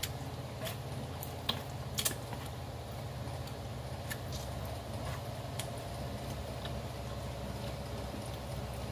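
A handful of sharp clicks of wooden chopsticks against a takeout food box while food is picked up and eaten, the loudest around one and a half and two seconds in, over a steady low hum.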